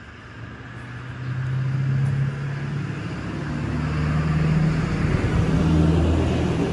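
Small engine of a motorized bicycle running while riding, its pitch climbing through the first half and dropping back about five seconds in.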